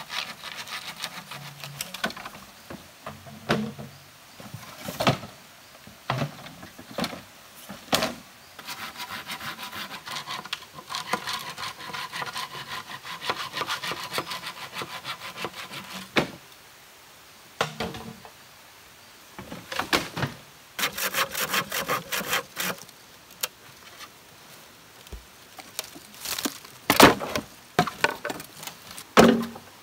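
Hand pruning saw cutting through bamboo poles, with rapid back-and-forth rasping strokes in several spells separated by pauses. A few sharp knocks of bamboo come between the spells.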